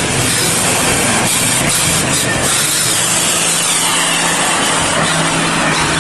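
Fuel tanker truck's diesel engine running as the truck drives through deep mud, a loud steady drone with no letup.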